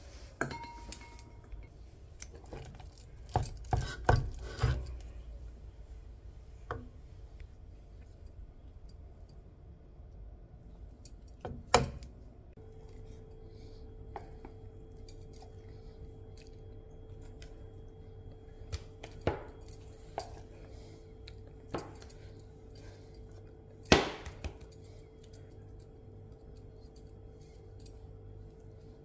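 A wooden spatula knocking and scraping against a stainless steel pan and plate while thick chocolate fudge mixture is stirred, scraped out and spread. There is a quick cluster of knocks a few seconds in, then single sharp knocks spaced several seconds apart. A faint steady hum comes in about midway.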